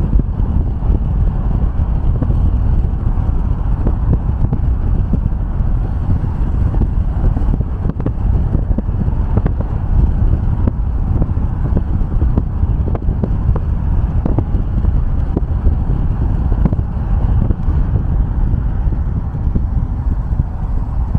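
Car driving at highway speed: a steady low road and tyre rumble, with small knocks from the road surface throughout.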